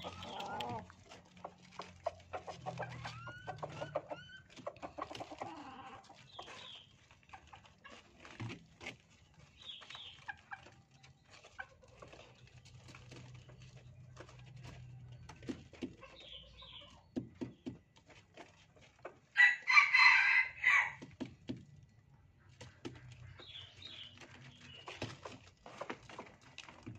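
Red junglefowl calling with scattered soft clucks and short chirps. About two-thirds of the way through, a rooster gives one loud crow lasting about a second and a half.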